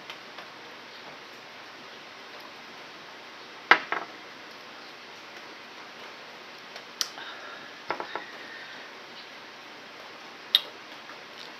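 A few sharp knocks and clicks over a low room hiss: a drinking glass put down on the table, then unripe bananas handled and broken apart on a plastic plate. The loudest knock comes just under four seconds in, with smaller clicks around seven, eight and ten and a half seconds.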